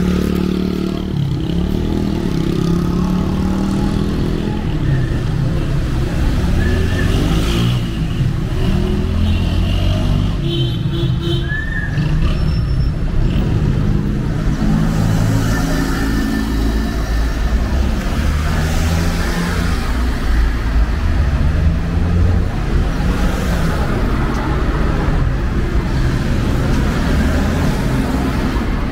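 Street traffic: cars and SUVs driving past, their engines giving a steady low rumble.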